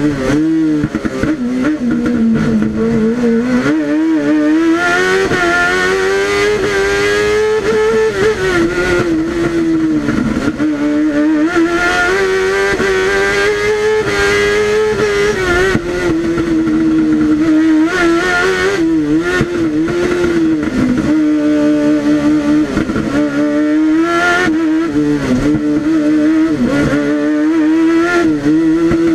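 Kawasaki ZX-10R 1000cc inline-four superbike engine at full race pace, heard from inside the cockpit: engine speed climbs and falls again and again as the car is driven hard through the gears and corners.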